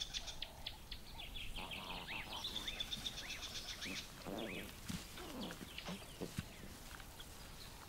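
Birds calling in the bush: a quick run of high ticks, then a string of short rising-and-falling chirps at about three a second, with a few scattered lower calls after.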